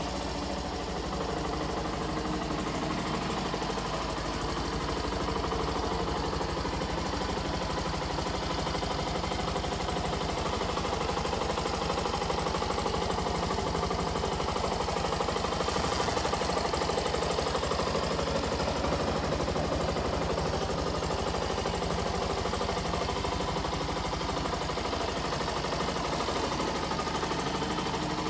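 Yamaha YS125's 124 cc air-cooled single-cylinder four-stroke engine idling steadily in neutral.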